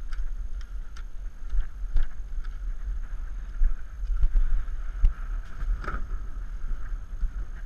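Wind rumbling on the microphone beside an open boat on the water, with scattered knocks and clicks, the loudest about 2, 5 and 6 seconds in.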